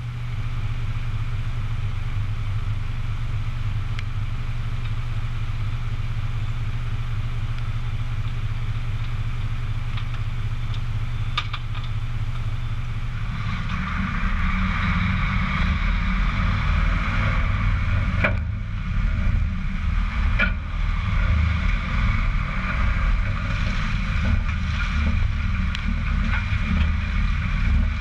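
Mitsubishi Fuso Super Great tractor unit's diesel engine idling steadily. About halfway through it gives way to the louder run of the moving rig: a low engine rumble with tyre noise on wet asphalt and a few sharp knocks from the trailer.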